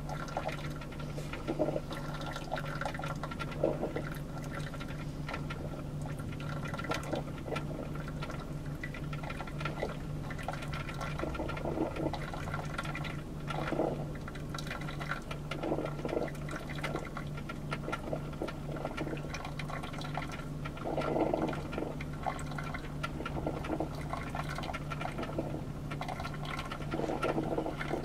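Black & Decker single-serve coffee maker brewing, its water gurgling and sputtering in irregular bursts over a steady low hum.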